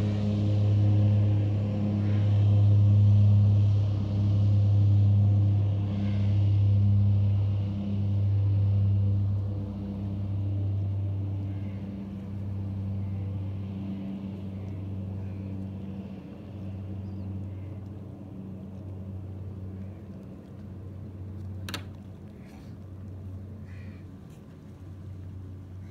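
Twin-engine turboprop floatplane, a DHC-6 Twin Otter, at takeoff power: a low propeller drone that swells and fades about every two seconds and grows fainter as the plane climbs away.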